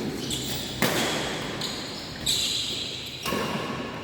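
Badminton rally in a sports hall: rackets striking the shuttlecock three times, about a second apart, each hit echoing in the hall, with short high shoe squeaks on the court floor between hits.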